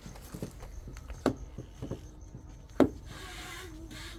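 Handling noises: two sharp knocks about a second and a half apart, among lighter tapping and rubbing, and a brief hiss about three seconds in.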